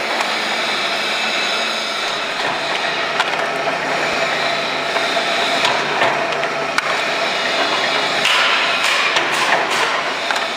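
LG-1122 insole roller press machine and its feed conveyor running: a steady mechanical noise with a few sharp clacks scattered through it.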